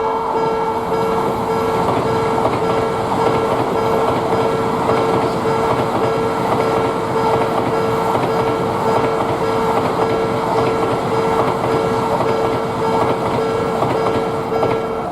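Train running by: a loud, steady rush of wheel and air noise with a steady whine held on one pitch.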